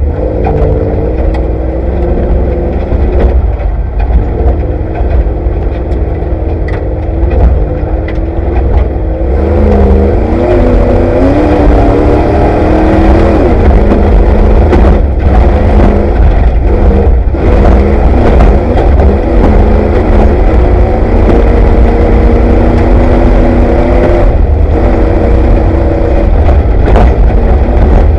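Off-road race vehicle's engine running hard, heard from inside the car. Its pitch rises and falls with the revs over a heavy, constant low rumble, with a few sharp knocks from the rough ground.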